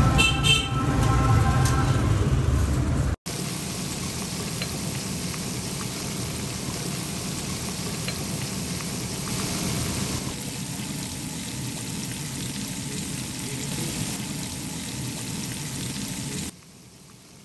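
Music over a low rumble, cut off sharply about three seconds in, then a steady sizzle of oil deep-frying that turns fainter near the end.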